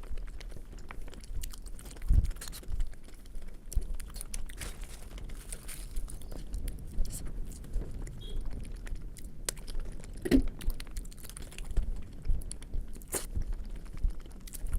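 Close-miked chewing and wet mouth clicks of a person eating Indian flatbread with potato curry, irregular and continuous, with a few heavier bites.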